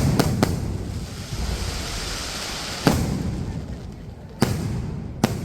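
Fireworks going off: three sharp bangs in quick succession, then single bangs about three seconds in, at about four and a half seconds and near the end, each leaving a short echo over a steady background hiss.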